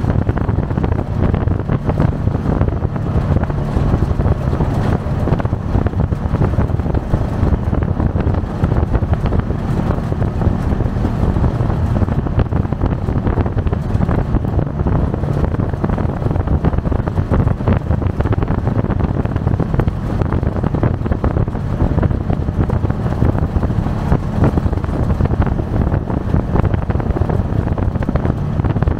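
Polaris RZR side-by-side running steadily as it drives off-road, its engine noise heavy and low, with wind buffeting the microphone.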